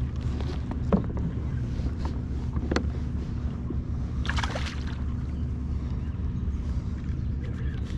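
Low, steady wind rumble on the microphone over a kayak on the water, with a couple of sharp clicks and a short hissing rush about four seconds in.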